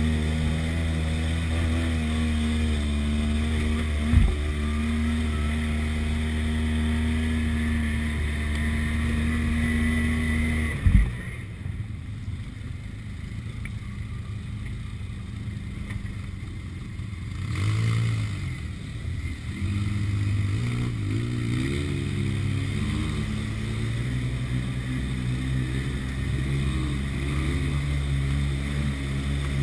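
Side-by-side UTV engine running steadily on a rough trail, with a thump about four seconds in and a louder bang near the middle as the machine jolts over rocks. After the bang the engine drops back to a low idle-like run, then revs up again and runs on steadily.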